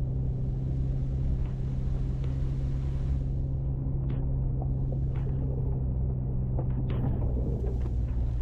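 Jeep Cherokee XJ driving: a steady low engine drone and road rumble, with scattered clicks and rattles.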